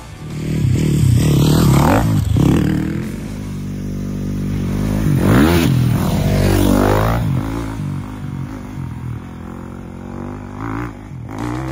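Dirt bike engine revving hard as it comes up and passes close by about halfway through, its pitch sweeping down as it goes past. It then fades as the bike rides off down the trail, with a couple of short blips of throttle near the end.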